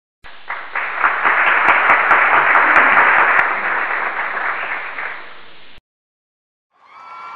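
Applause sound effect: a dense burst of clapping that starts suddenly, swells, then cuts off abruptly after about five and a half seconds.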